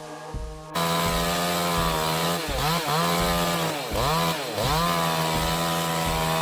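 Petrol chainsaw running at high revs and cutting into a tree, starting loud just under a second in. Its pitch sags and recovers about three times as the chain bogs in the wood.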